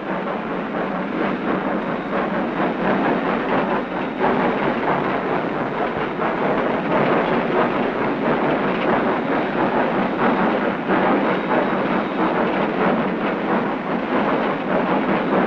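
Union Pacific 9000-class 4-12-2 steam locomotive working a freight train, a loud, steady, dense rumble of exhaust and running gear.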